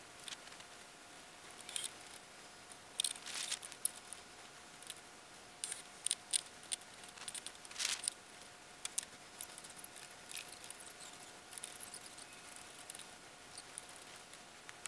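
Scattered light clicks, taps and rustles of hands handling parts at a pickup truck's tailgate, with the loudest clusters about three and eight seconds in, over a faint steady thin hum.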